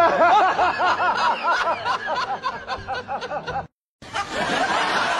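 A person giggling in a rapid run of short high-pitched notes, each rising and falling, for about three and a half seconds before it cuts off abruptly. After a brief gap, a noisier stretch with faint voices begins.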